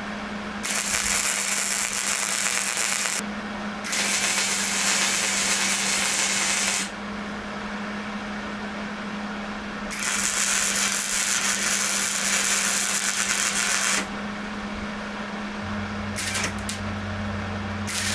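A power tool run in three bursts of a few seconds each, starting and stopping sharply, over a steady low hum.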